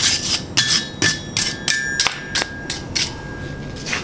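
Wire brush scrubbing a hot steel horseshoe held on the anvil horn in quick rasping strokes, about three a second, with a faint metallic ring under them, to clean off coal melted onto the steel. The strokes thin out near the end.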